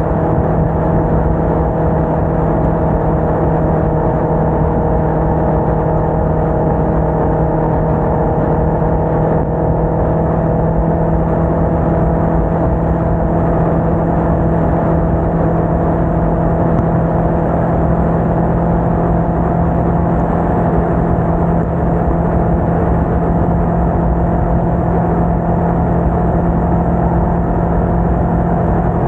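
Sport motorcycle engine running at a steady cruise, its pitch edging up slightly partway through. Heavy wind rush on the bike-mounted microphone underneath.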